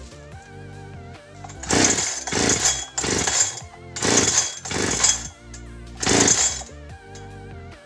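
About six hard pulls on the recoil starter of a 65 cc two-stroke clone Husqvarna 365 chainsaw. Each is a short rasp of the cord and the engine cranking over, and the engine does not catch: the usual hard first start of a new saw. Background music plays underneath.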